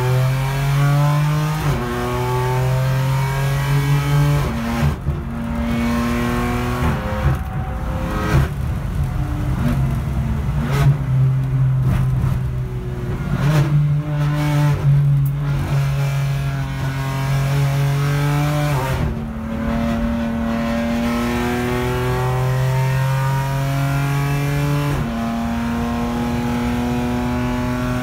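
Race car engine heard from inside the cockpit, pulling hard through the gears: the pitch climbs steadily, then jumps at each gear change, several times over.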